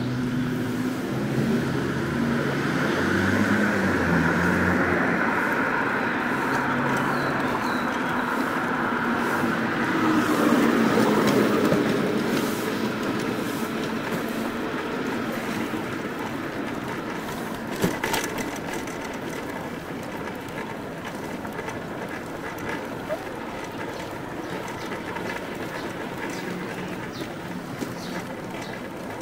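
City street traffic: a steady rumble of passing vehicles, with one louder vehicle going by about ten seconds in and a sharp click a little later.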